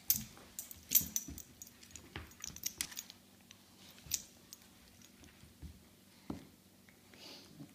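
Two puppies play-wrestling: irregular sharp clicks and light knocks from their scuffling, thickest in the first three seconds, with a few louder knocks later.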